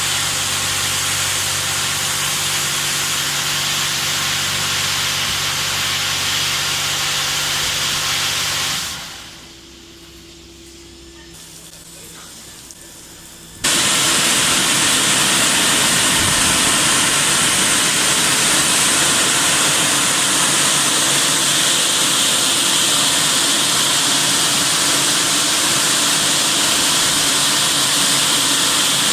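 Automatic touchless car wash machine running: a high-pressure pump hums steadily under the hiss of water spray. About nine seconds in the sound fades to a quieter lull. A few seconds later a louder spray hiss cuts back in suddenly and keeps going steadily.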